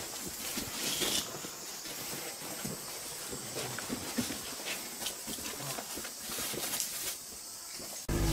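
Quiet outdoor night ambience: a steady hiss with a faint high insect chorus, scattered light footsteps and rustling, and a sudden low rumble on the microphone right at the end.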